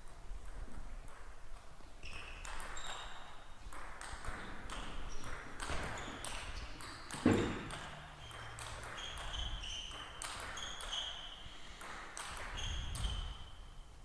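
Table tennis rally: the ball clicking back and forth off the bats and the table, with short high squeaks of players' shoes on the court floor. One louder knock comes about halfway through.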